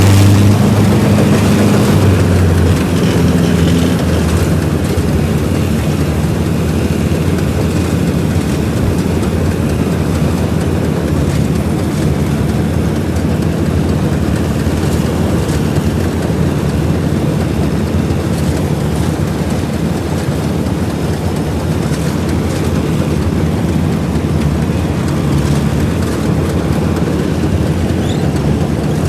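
Vintage Köla Combi combine harvester running steadily while harvesting, a continuous loud engine-and-machinery drone whose pitch shifts about two seconds in.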